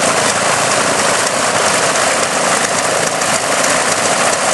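Boeing Stearman biplane's radial engine running steadily on the ground, its propeller turning; loud and even throughout.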